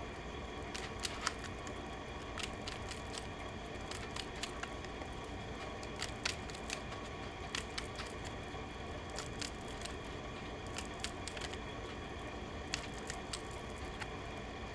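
Faint, irregular clicks and flicks of an oracle card deck being shuffled and handled, over steady low room noise.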